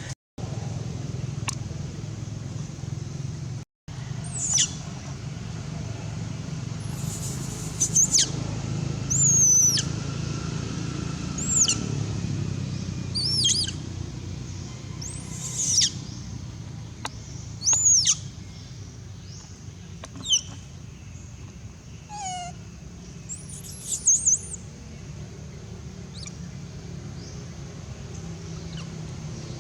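Baby monkey crying: about ten shrill, high calls that sweep downward in pitch, spread over most of the stretch, above a steady low hum.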